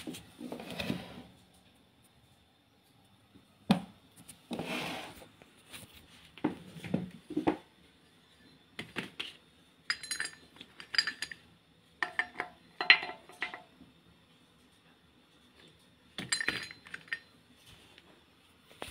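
Metal engine parts being handled on a workbench: scattered clinks and knocks, several ringing briefly in a cluster about ten to thirteen seconds in. There are two longer rustling noises, about one and five seconds in.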